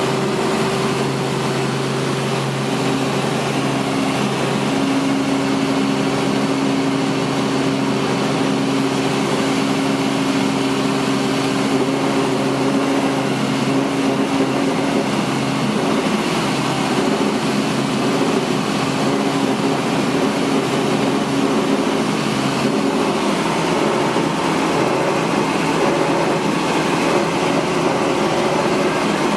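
Helicopter in flight: a steady, loud engine and rotor drone with several held humming tones.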